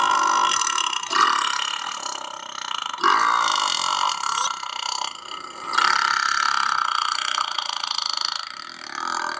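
A run of long, drawn-out burps, one after another, each lasting a couple of seconds, with fresh ones starting about a second in, at about three seconds and near six seconds.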